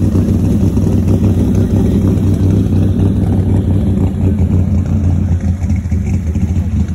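A car engine idling, a steady low-pitched running sound.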